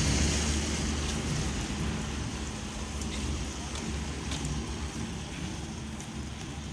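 A motor vehicle's engine rumbling steadily and fading gradually as it moves away.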